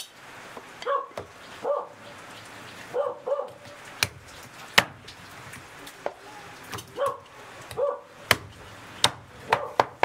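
A dog barking in short single barks and pairs, about eight in all, with a few sharp knocks of the cleaver and meat on a wooden chopping block between them.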